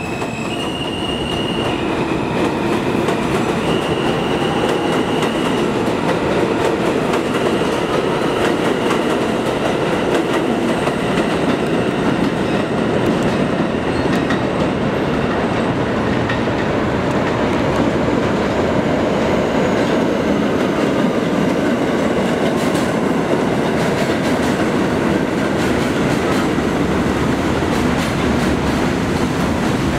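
New York City subway trains on the rails: a steady heavy rumble and rattle of steel wheels on track. In the first few seconds a high whine steps up and down in pitch. Later a Budd R32 train runs past on the elevated line.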